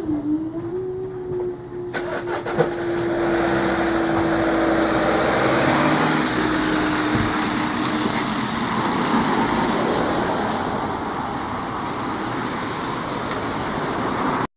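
Road traffic, a van among it, driving across the level crossing as it reopens, with tyre noise over the wet road surface. A steady hum runs underneath for the first eight seconds, and there is a sharp click about two seconds in.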